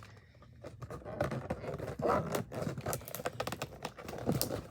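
Fingernails scratching and picking at a sticker seal on a cardboard box: a busy run of small scrapes and clicks.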